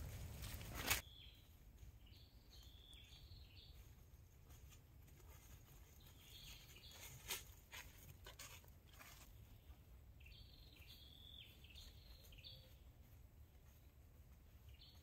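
Quiet forest ambience with a bird calling in short, stepped, high chirps in three spells. A sharp snap sounds about a second in, another near the middle, and a few fainter clicks follow.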